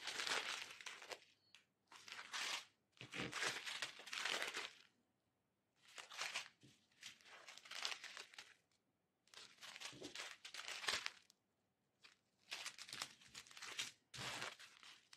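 Strips of small clear plastic sachets of diamond-painting drills crinkling as they are handled and turned over, in short irregular bursts with brief pauses between.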